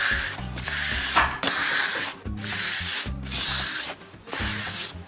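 Hand sanding with 220-grit sandpaper over a surface wet with water and a little dish soap: the paper rubs back and forth in even strokes, about two a second.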